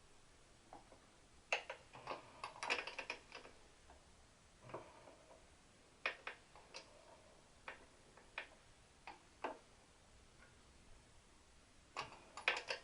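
Irregular clicks and short clattering clusters of hand tools working on the exhaust pipe fittings, with quiet gaps between.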